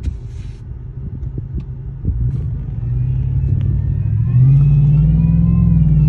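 2021 Chevy Silverado pulling away from a stop, heard inside the cab: the engine idles with a low rumble through its new aftermarket exhaust, then revs up about two seconds in and louder again near the end. From about three seconds in, a high whine with several tones rides on top and rises and falls with the revs. The owner says it sounds like a power tool and seems to come from the front of the motor, not the exhaust.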